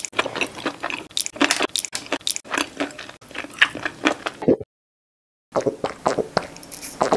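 Close-miked eating sounds of biting and chewing soft flatbread, with wet, crackly mouth noises. After a short silence about four and a half seconds in, a second run of wet mouth sounds begins: sips through a straw.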